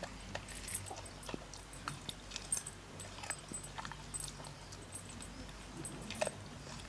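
A dog eating scraps off the ground, with irregular crunching and smacking clicks from its mouth.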